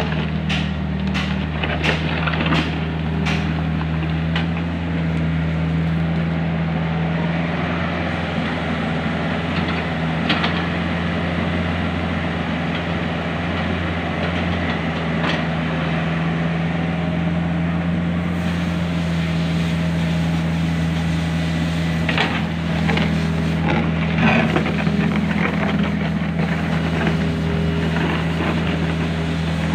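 Komatsu PC45 mini excavator's diesel engine running steadily at working speed, with scattered knocks and clanks from the machine at work, a cluster near the start and another about three-quarters of the way through.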